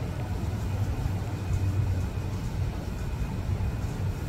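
Steady low hum of ventilation or air-conditioning, even and unbroken.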